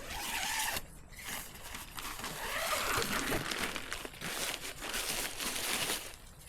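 Crinkling, rustling noise in two spells: a short one at the start, then a longer one that runs for several seconds and stops about half a second before the end.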